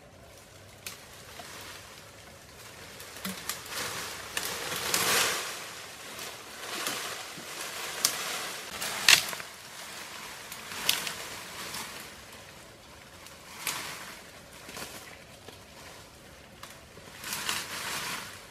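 Leafy vines and branches rustling and snapping as they are pulled down and torn by hand, in a series of separate bursts with a few sharp cracks.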